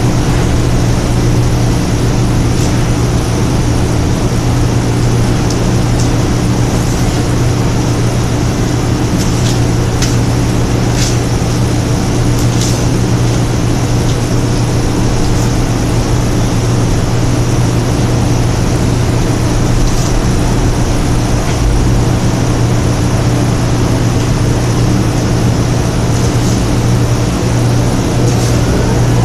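Steady low mechanical hum of a running machine, with faint crisp crackles now and then from stiff palm fronds being split and sorted by hand.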